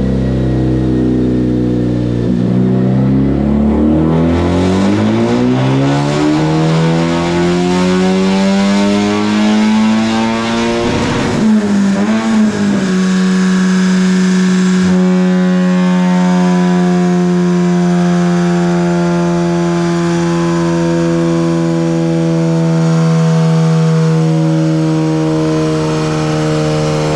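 Honda Civic Type R FL5's turbocharged 2.0-litre four-cylinder with an aftermarket intake and exhaust, run hard on a chassis dyno during tuning. Its pitch rises steadily for about eleven seconds, dips briefly, then is held at a steady high engine speed.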